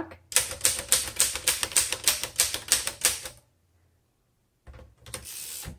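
1928 Royal 10 manual typewriter typing in shift lock: about sixteen keystrokes in quick succession, roughly five a second, for about three seconds. After a short pause, a brief rasping noise comes near the end.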